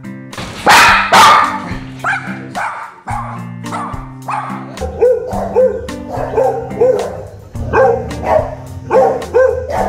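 Dogs barking over background music: two loud barks about a second in, then a quick series of short barks, two to three a second, from about five seconds on.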